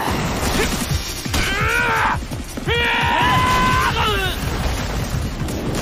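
The Leech Devil, a giant animated worm monster, shrieking: a wavering cry, then a long held shriek, and another cry starting near the end, over a heavy low rumble.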